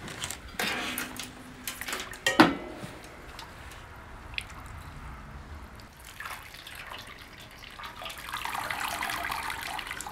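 Water splashing and streaming off a scalded chicken as it is dipped in and lifted out of a pot of hot scald water, used to loosen the feathers for plucking. The pouring runs steadily over the last two seconds. A few handling knocks come earlier, the loudest a sharp knock about two seconds in.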